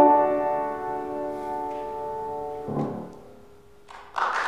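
Grand piano sounding the song's final chord, which rings and is released just under three seconds in. After a short hush, applause breaks out near the end.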